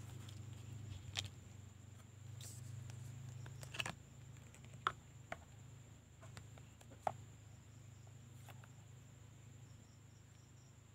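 Light, scattered clicks and taps from a clear plastic phone case and its cardboard box being handled, about half a dozen in all, over a faint steady hum.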